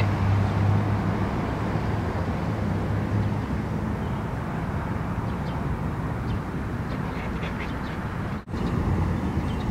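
Outdoor ambience: a steady low rumble with a hum that eases after the first few seconds, and faint bird chirps in the second half. A brief dropout comes near the end, at a cut.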